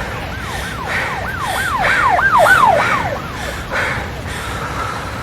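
Emergency vehicle siren in a fast yelp, its pitch sweeping up and down about three times a second. It swells louder to about halfway through, then fades away.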